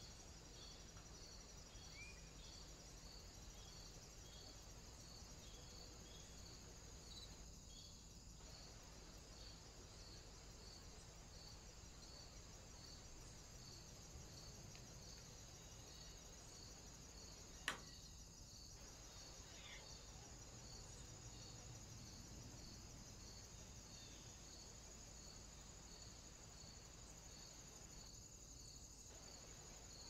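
Faint insect chirping, crickets: a steady high-pitched buzz with a short chirp repeating about twice a second. A single sharp click about two-thirds of the way through.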